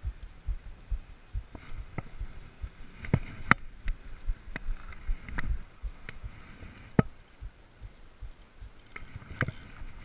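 Handling noise from a spinning rod and reel worked close to a body-worn camera: irregular low thumps several times a second, with a few sharp clicks, the loudest about three and a half seconds in and another about seven seconds in.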